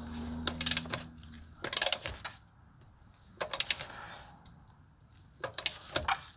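Ratcheting click-type torque wrench on a truck lug nut: its ratchet clicks in four short rattling bursts as the handle is worked back and forth. A low steady hum stops about a second and a half in.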